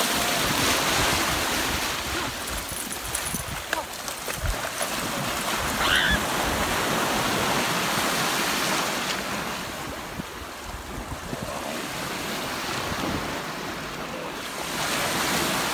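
Shallow sea surf washing and breaking, with water splashing around legs wading through it, and wind on the microphone.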